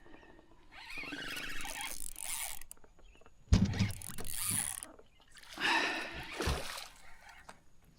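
Fishing reel being cranked, a steady gear whir, as a redfish is reeled up to the boat. Sudden knocks come about three and a half seconds in and again near six and a half seconds.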